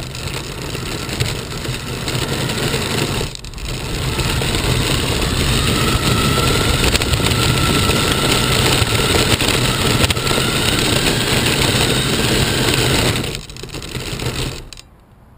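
RC car driven hard on asphalt, heard from a camera mounted on the car: a steady rushing of motor, tyres and wind with a faint whine in the middle. It eases off briefly about three seconds in and cuts off suddenly near the end.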